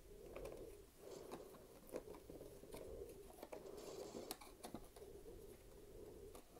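Near silence with faint rustling and light taps as a cardboard canvas-set box is pushed down into a crammed drawer.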